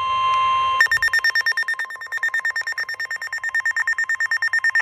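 NOAA Weather Radio 1050 Hz warning alarm tone, a steady single pitch that cuts off under a second in. A weather radio receiver's alert alarm then sounds: a higher-pitched rapid beeping, about eight beeps a second.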